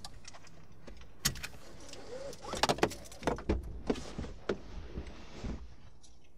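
Inside a car: a run of sharp clicks and rattles over a steady low hum, the clicks coming thickest between about two and a half and four and a half seconds in.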